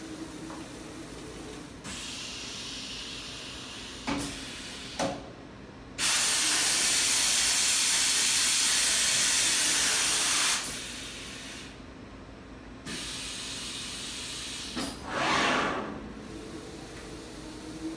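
Compressed air hissing from the Anderson Maxxis 5-axis CNC router's HSK router head at the tool changer: one loud blast of about four and a half seconds that starts and stops abruptly, then a shorter burst that swells and fades near the end. Under it, the router's steady machine hum and a couple of short knocks before the long blast.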